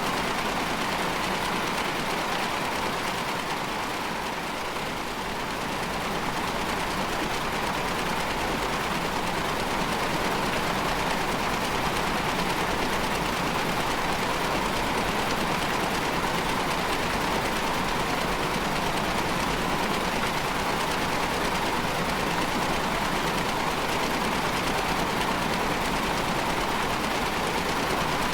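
Dense, steady noise texture from an experimental sound-art soundtrack, an even rushing hiss with a brighter midrange band and no rhythm. It dips slightly about five seconds in, then holds level.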